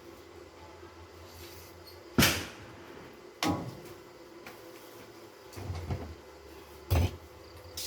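Scattered knocks and thumps, about five in all, irregularly spaced; the loudest comes about two seconds in.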